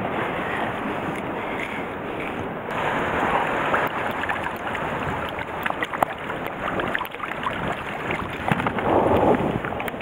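Wind buffeting the microphone over waves washing on a rocky shore, with small clicks and knocks from handling, and a louder rush about nine seconds in.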